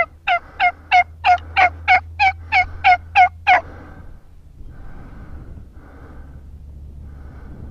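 Turkey call blown by the hunter: a run of about a dozen loud turkey calls, about three a second, that stops about three and a half seconds in. Wind rumble on the microphone runs underneath.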